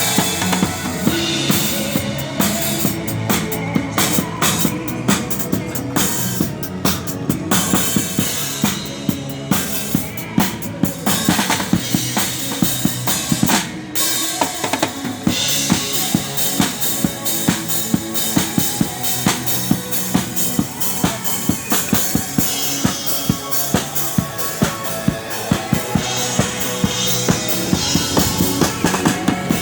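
A drum kit played fast and busily, with bass drum, snare and rimshots, over accompanying music with steady pitched notes.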